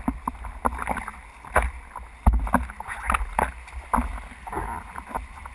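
Water splashing and slapping against a surfboard as it is paddled prone through small swells, in irregular splashes over a low rumble, the loudest a little past two seconds in.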